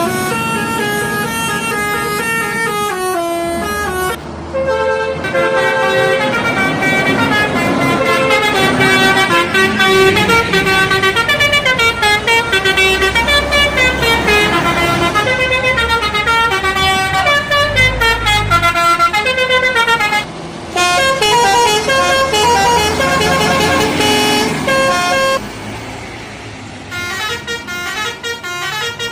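Bus telolet horns, the multi-trumpet musical air horns of Indonesian buses, playing quick tunes of stepped notes. Several horn tunes follow one another, with sudden changes about four seconds in, around twenty seconds and again near the end.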